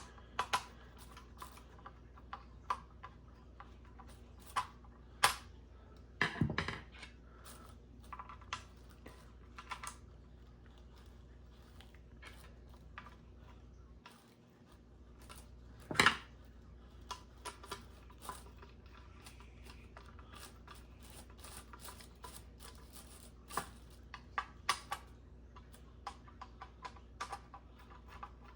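Scattered small clicks, taps and knocks of ceiling fan blades, screws and hardware being handled during blade assembly, with two louder knocks, one about six seconds in and one about sixteen seconds in.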